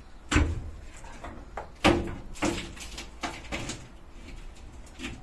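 Knocks and clatter of an old bus window pane being pushed and worked loose in its metal frame, with the loudest knocks about half a second in and just before two seconds, then several lighter ones.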